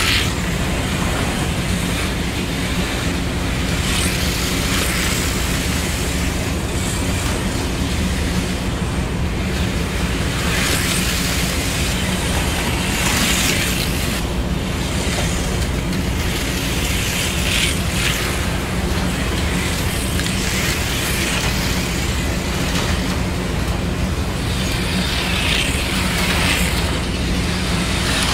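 HO-scale Auto World 4 Gear slot cars running laps on a plastic track, their small electric motors and gears making a steady whir over a low hum. The whir swells each time a car passes close by, several times over.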